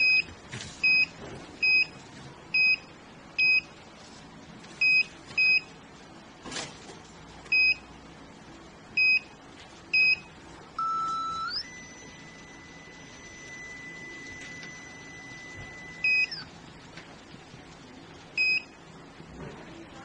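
MS6818 cable locator transmitter beeping as its keys are pressed: about a dozen short, high, loud beeps, irregularly spaced. About eleven seconds in, a longer electronic tone starts lower, glides up in pitch and holds steady for about five seconds before cutting off.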